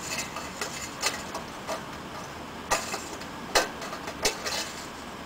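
Light metallic clicks and clinks as a chained cotter pin is worked through the stainless-steel lid bracket of a TE-200 passive air sampler to lock the lid shut. There are several small ticks, then three sharper clicks about a second apart in the second half.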